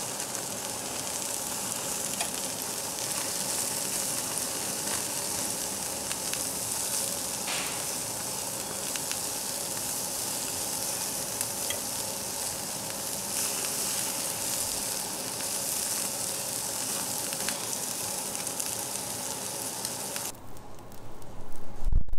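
Jeju black pork sizzling steadily on a hot cast-iron grill plate, with a few faint clicks of metal tongs. About twenty seconds in the sizzling cuts off, followed by a few low thumps.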